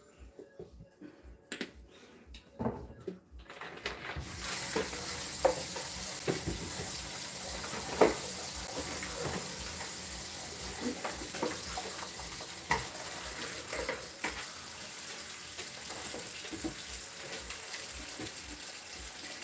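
Kitchen tap running steadily into a sink, turned on about four seconds in and shut off near the end, with scattered clinks of dishes.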